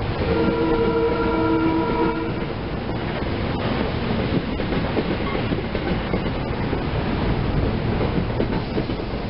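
SEPTA Silverliner electric commuter train passing: a horn chord sounds for about two seconds at the start, then the cars roll on with a rumble and irregular wheel clicks over rail joints.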